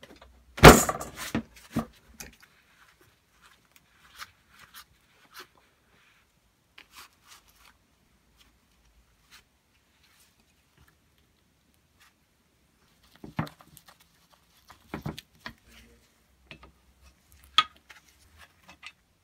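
Sporadic metal clicks and knocks of an adjustable spanner working on the fittings of an old Tecalemit grease gun. There is a brief clatter just under a second in, a long quiet stretch in the middle, and a few sharper knocks near the end.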